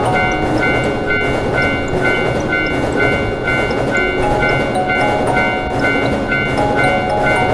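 Railroad crossing bell ringing in a fast, even rhythm while a train runs through, over cheerful background music.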